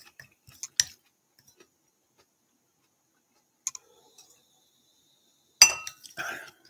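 Wooden spoon and ceramic ramen bowl clinking: a few sharp knocks with a brief ringing of the ceramic, one about a second in, one near the middle and a louder cluster near the end, with scraping among them.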